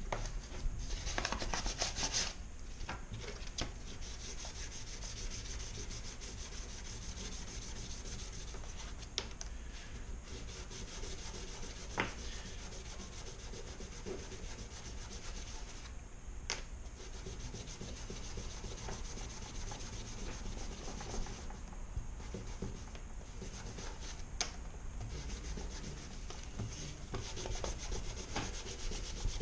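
Abrasive paper being rubbed by hand over a metal part of a small electric motor, cleaning it up, in a continuous rough scraping with a few sharp clicks and knocks along the way.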